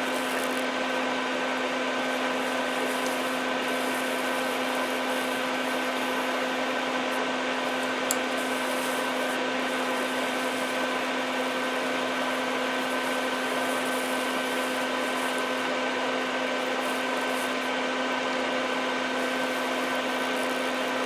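Small electric fan running steadily, a constant motor hum over an even rush of air, with one faint tick about eight seconds in.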